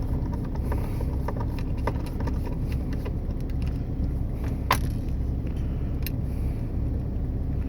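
Light clicks and taps of small metal parts being handled as a bracket is taken out of a radio's case, with one sharper click near the middle, over a steady low background rumble.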